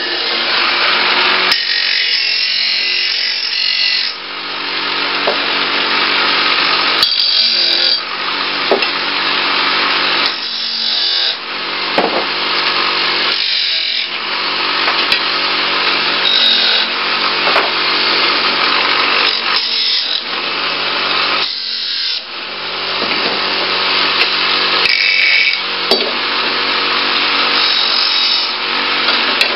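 Craftsman bench grinder running with a steady motor hum while pieces of scrap metal are ground on its wheel one after another, each contact a long harsh grinding hiss with short breaks between pieces. This is a spark test to sort stainless steel from aluminum.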